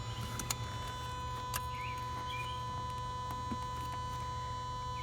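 Small birds chirping in short repeated calls over a steady low hum, with two sharp clicks in the first two seconds.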